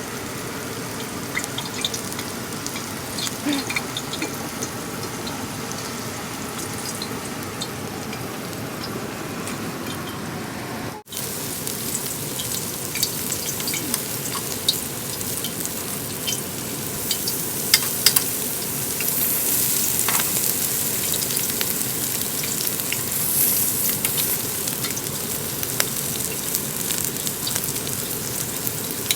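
Pork belly sizzling and crackling on a grill, a steady frying hiss with scattered pops that turns brighter and louder after a cut about eleven seconds in.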